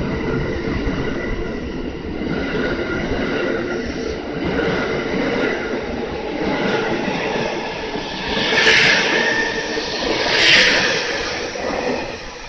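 The JR East E001 Train Suite Shiki-shima pulling out of the station, its cars rolling past at low speed with a steady running noise. Two louder swells of noise come about nine and ten and a half seconds in.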